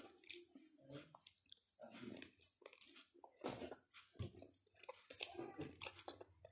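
Close-up chewing of a mouthful of boiled pork fat, with irregular soft smacks and clicks of the mouth a few tenths of a second apart.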